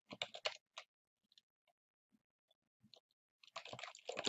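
Faint computer keyboard typing: a quick run of key clicks at the start, a few scattered clicks in the middle, and another run near the end.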